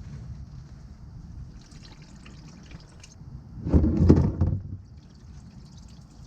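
Old engine oil draining from the oil pan of a Ford F-150's 5.0L Coyote V8 into a drain pan, trickling, with a louder burst of noise lasting about a second, a little under four seconds in.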